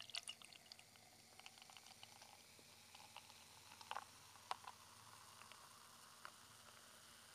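Beer poured from a can into a pint glass, faint, with scattered small pops and crackles of fizzing foam and a few louder clicks around four seconds in.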